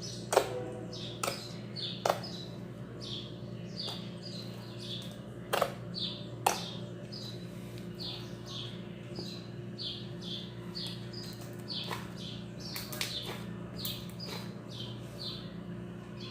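Slime with styrofoam beads being squeezed and stretched by hand, giving sharp clicks and pops now and then. The loudest come in the first two seconds and twice around six seconds in.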